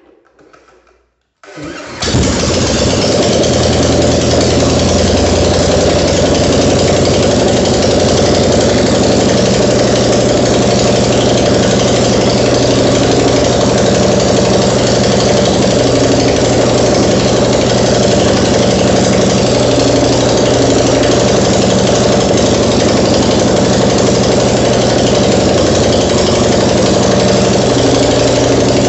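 A bench-mounted engine is spun over with a cordless drill on its crankshaft pulley. It catches about a second and a half in, then runs steadily at idle.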